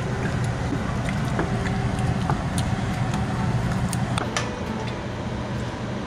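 Light, scattered clicks and scrapes of a wooden spoon stirring a thick meat sauce in a large stainless steel pot, over a steady low hum.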